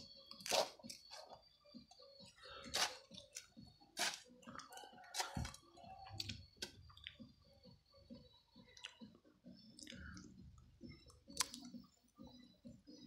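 Hand hoe chopping into and scraping loose soil: irregular crunchy strikes every second or two, fewer near the end.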